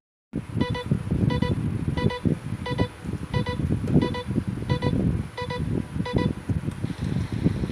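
An electronic alarm beeping in short double pulses, nine pairs about 0.7 s apart, over a continuous low rumbling noise. The beeping stops about six seconds in while the rumble goes on.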